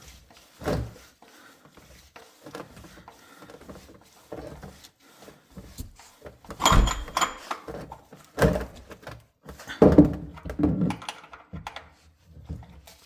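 Irregular metal-and-plastic knocks and clunks as the oil filter housing cap is threaded on by hand and tightened with a ratchet, with several louder clunks in the second half.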